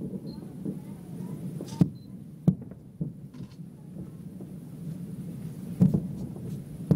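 Aerial fireworks shells bursting: a rolling rumble of bursts with sharper bangs about two seconds in, again half a second later, and near the end.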